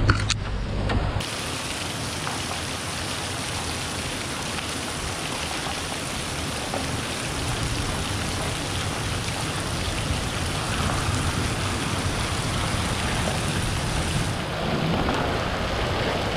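Steady hiss of rain and dripping water, with a Toyota 4Runner crawling up the wet gravel trail, its tyres and engine growing closer near the end. A short knock sounds right at the start.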